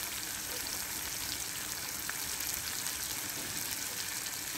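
Chicken and potato curry sizzling in its masala in an aluminium pot: a steady hiss with faint scattered crackles.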